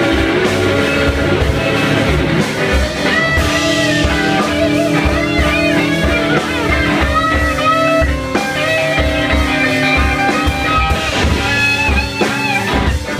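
Live blues-rock band: an electric guitar plays a lead line full of bent, sliding notes over bass and drums.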